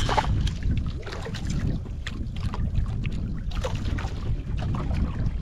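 Wind buffeting the microphone on a small fishing boat at sea, a steady low rumble with water sloshing and scattered small knocks.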